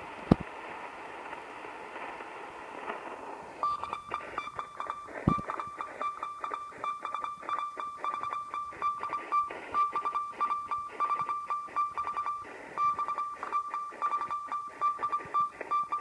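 Sangean shortwave receiver with its BFO on, tuned to 7.015 MHz in the 40-metre amateur band: band hiss for the first few seconds, then a Morse code (CW) signal beeping as a steady tone keyed on and off in dots and dashes, over static crackle. Two sharp handling knocks, one right at the start and one about five seconds in.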